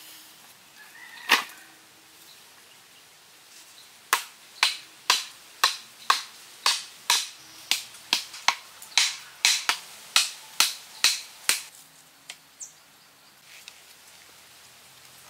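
Thin wooden stakes being hammered into the ground: a run of about seventeen sharp knocks, roughly two a second, after a single knock about a second in.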